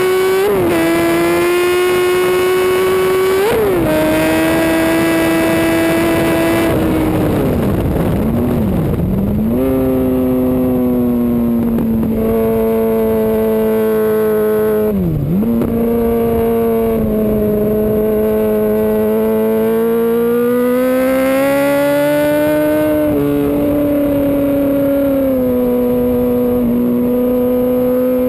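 2005 Yamaha R1's inline-four engine at race pace, heard from an onboard camera on the bike. It climbs in pitch and shifts up about three and a half seconds in, drops in a long swoop of braking and downshifts around seven to ten seconds in, dips sharply once more near the middle, then holds and slowly climbs again with short steps at gear changes near the end.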